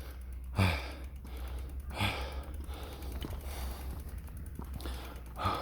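A man breathing heavily with effort, with hard exhales about half a second, two seconds and five and a half seconds in, over faint rapid ticking.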